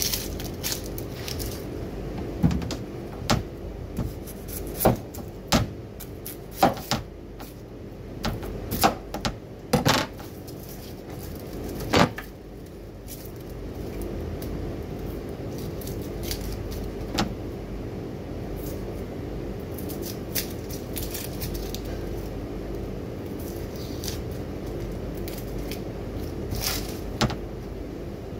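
Knife knocking on a wooden chopping board in a dozen irregular strikes as whole onions are peeled and cut in half, over a steady background hum. The strikes stop about halfway through, leaving the hum and a few light clicks of handling.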